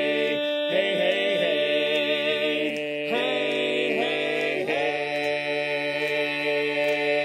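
Male barbershop quartet singing a cappella in close four-part harmony: short swooping chords, then one chord held from about five seconds in.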